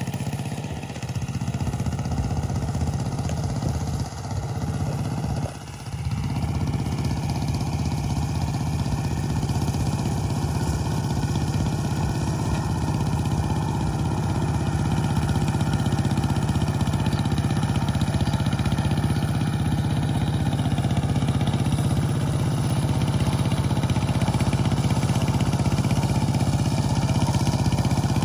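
Small single-cylinder engine of a kuliglig hand tractor running steadily. It dips briefly in loudness twice in the first six seconds, then slowly grows a little louder.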